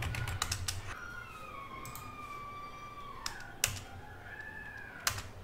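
Computer keyboard keystrokes: a quick run of typing, then single key presses about three seconds in and again near the end. A faint, drawn-out wavering call sounds twice in the background.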